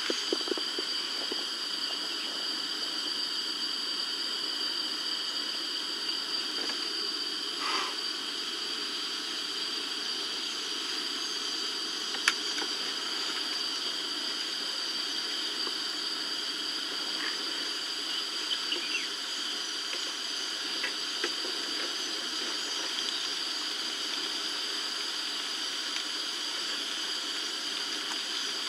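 Steady hiss with two continuous high-pitched tones, and a few faint clicks, the sharpest about twelve seconds in.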